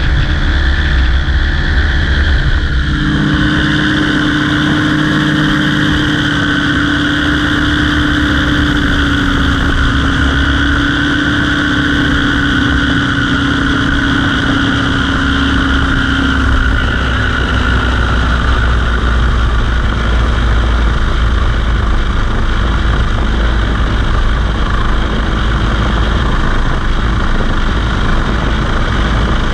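Small propeller aircraft's engine running steadily, loud and close, with a slight change in tone about three seconds in and again around seventeen seconds.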